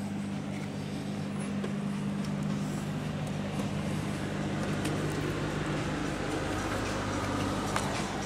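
Motor yacht's diesel engines running at low speed: a steady low hum made of several fixed pitches, under an even hiss.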